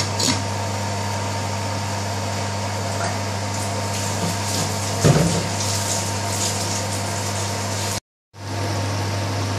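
A steady, fairly loud low mechanical hum with a brief soft knock about halfway through. The sound cuts out for a moment near the end and the hum then carries on.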